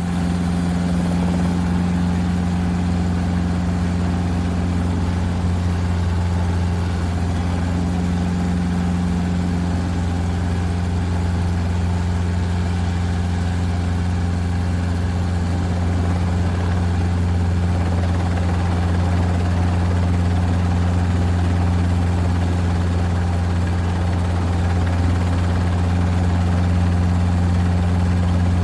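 Helicopter heard from inside the cabin, running steadily: a constant deep drone from the rotor and turbine, with a lighter hiss above it.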